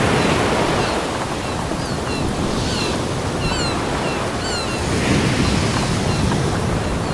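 Ocean surf breaking and washing on a beach: a steady hiss that swells with each wave every two to three seconds. Between about two and five seconds in, a run of short, high, falling chirps sounds over it.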